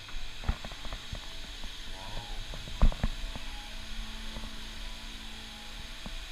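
Strands of a hanging curtain knocking and clacking as a hand pushes through them, with the loudest knock about three seconds in, over a steady hum.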